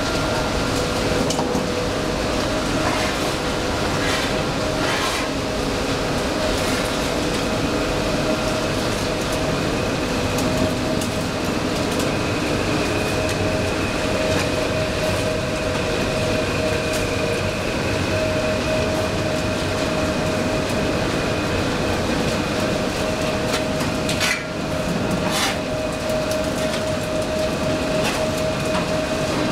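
Sawdust briquette production line machinery running: the dryer, screw conveyor and their electric motors give a loud, steady rumble with a constant hum, broken by a few short knocks, two of them close together about 24 seconds in.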